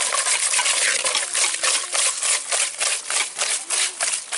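Hands squeezing and rubbing salted snail meat against the inside of a clay pot, a rhythmic wet scrubbing of about three to four strokes a second. The salt scrub is drawing the slime off the snail meat.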